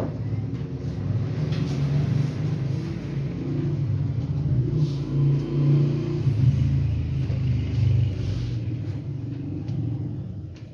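A motor vehicle engine running, a low rumble that swells to its loudest around the middle and fades near the end.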